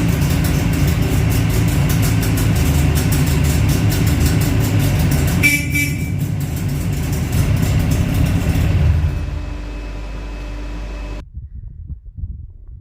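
Jawa 350 TS two-stroke twin motorcycle engine running with a fast, even beat, and a short horn beep about five and a half seconds in. The engine sound falls away about nine seconds in and cuts off abruptly near the end.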